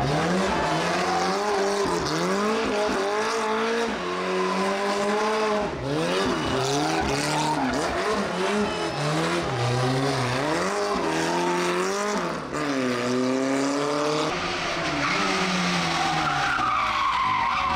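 Rally car engine revving hard, its pitch climbing and dropping again and again through gear changes and lifts of the throttle.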